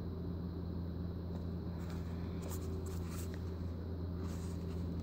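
Faint scratchy rustling of a cardboard makeup-brush box with a plastic window being turned over and handled, a few soft scrapes in the second half, over a steady low background hum.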